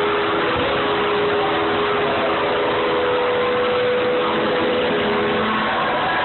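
Live rock band playing at full volume, picked up by a phone's microphone as a dense, steady wash of sound. A sustained note holds through most of it and drops away near the end.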